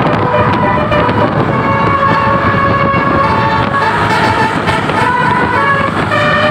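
Basuri multi-tone musical horn on the Putra Utama "Rahma Nursifa" bus, playing a tune. Its held notes step up and down in pitch, over a steady rumble.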